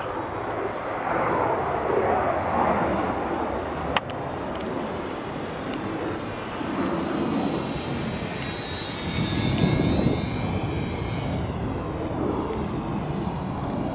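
Motor and propeller of a small RC model airplane in flight, a thin high whine that bends down and up in pitch through the second half as the plane passes. Under it is a low rushing noise that swells and fades, with one sharp click about four seconds in.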